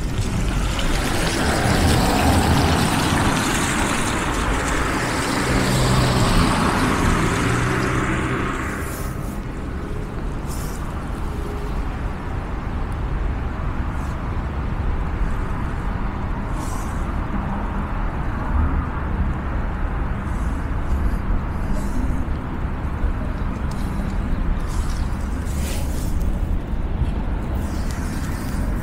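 Road traffic: a vehicle passing close by with an engine hum for the first eight seconds or so, then easing into a steady low rumble of traffic.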